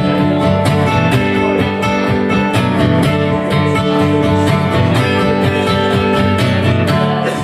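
Acoustic guitar strummed hard and steadily in an instrumental break between sung lines of a live song.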